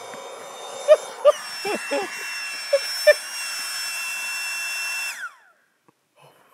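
Small battery-powered air-mattress pump running with a steady motor whine. About a second in its pitch steps up, as when the pump comes off the pad's valve and runs free. A few short squeaks sound over it, and then the motor is switched off and winds down.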